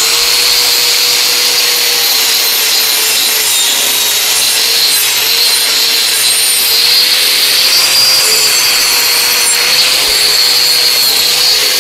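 A 4-inch angle grinder with a wire brush running continuously against a steel mower blade, scrubbing off crusted grass and rust. There is a steady motor whine that wobbles slightly under load, beneath a loud, harsh scratching hiss.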